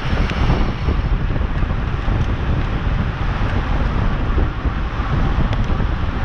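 Wind buffeting the microphone of a camera on a bicycle moving at racing speed: a loud, steady rush with heavy low flutter.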